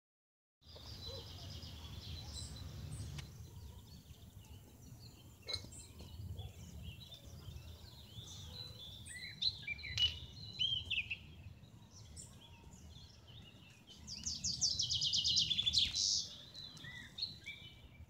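Several wild birds singing and chirping, with quick whistled notes and, twice, a fast trilling song of rapidly repeated notes. The second trill, near the end, is the loudest. A low steady rumble runs underneath.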